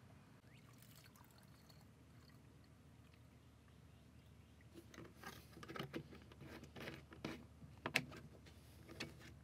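Coolant being drawn into the car's cooling system through a vacuum refill tool and its hose. After a few faint seconds there is a run of irregular gurgling bursts, loudest about eight seconds in.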